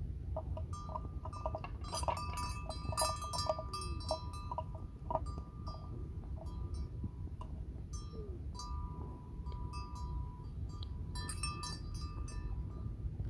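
A bell hung on a grazing water buffalo clanking unevenly as the animal moves its head. Clusters of quick ringing clinks come about two to four seconds in and again near the end, over a steady low rumble.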